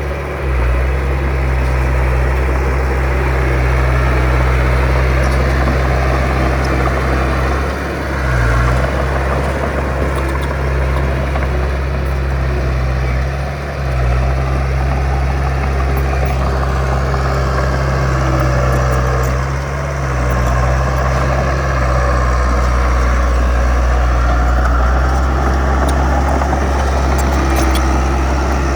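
Heavy diesel engine of earthmoving machinery running steadily, with a brief dip in level three times.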